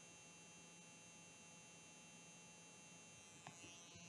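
Faint, steady electric hum of a permanent-makeup tattoo machine running, with a small click about three and a half seconds in.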